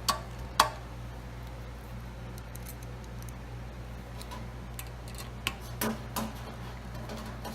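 Sharp metal clicks and clinks from a screwdriver and screws as a mounting bracket is fastened. There are two loud clicks in the first second, then a quieter stretch, then a few more clicks from about five and a half seconds in.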